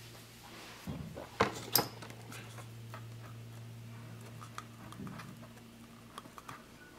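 Handling noise as an insulated wire is pushed through a hole in a plastic cap: a few sharp clicks, the loudest two about a second and a half in, then light scattered ticks, over a low steady hum.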